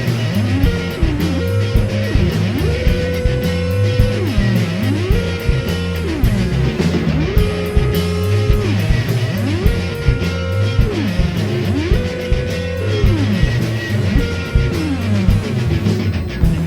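Psychedelic rock band playing an instrumental passage: guitars over bass and drums with a steady beat, led by a line that slides up in pitch, holds and slides back down, repeating about every two seconds.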